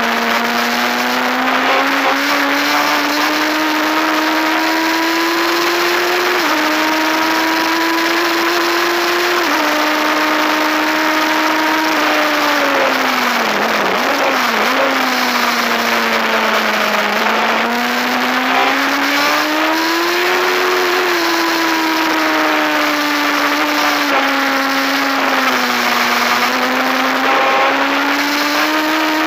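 Racing motorcycle engine heard from onboard at race pace, its note rising and falling with the throttle and jumping in sudden steps at gear changes, dipping low about halfway through, with a steady rush of wind noise.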